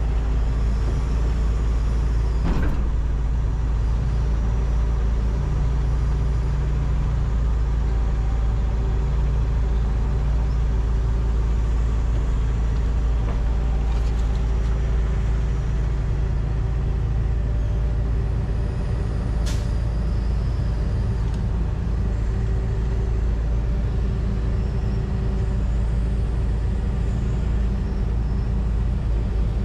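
John Deere 245G excavator's diesel engine running steadily under working load, heard from inside the cab. A couple of brief knocks come a few seconds in and midway through, and a short high squeak comes about two-thirds of the way through.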